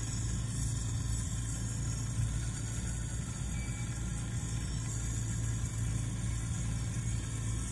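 Steady low drone with a light hiss from a running glassblowing bench torch and the studio's equipment, unchanging throughout.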